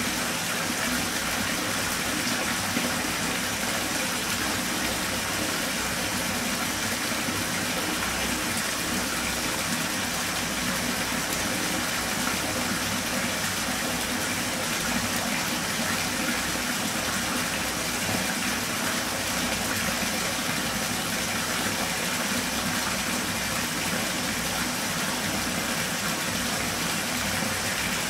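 Bathtub filling from the tap: a steady gush of water pouring into the water already in the tub.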